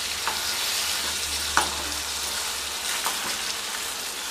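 Chicken drumsticks sizzling in a pan of thick sauce that has cooked down, with its water nearly gone, while a wooden spatula stirs them. A steady hiss is broken by a few short clicks and pops.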